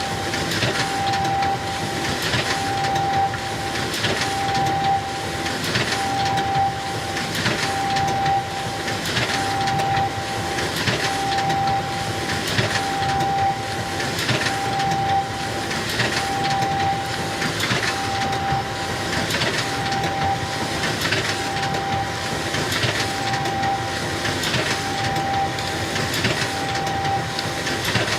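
Xerox photocopier running a continuous copy job, repeating its feed cycle about every 1.7 seconds. Each cycle carries a short mid-pitched whine and a brief swish of paper-handling noise over the machine's steady running hum.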